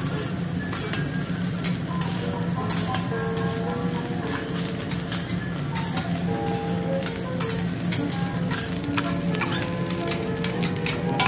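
Egg fried rice sizzling on a steel teppanyaki griddle while two metal spatulas scrape, chop and clack against the plate in quick, irregular strokes.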